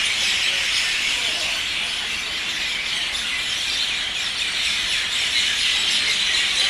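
A large flock of birds chirping and chattering all at once, a dense, continuous chorus of many overlapping calls.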